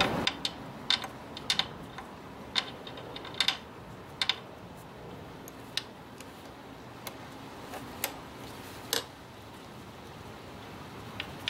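Irregular sharp metallic clicks and taps from a 10 mm socket wrench and the transmission drain bolt as the bolt is loosened, then turned out by hand, on a GY6 150cc scooter's gear case. The clicks come thickly in the first few seconds and then only now and then.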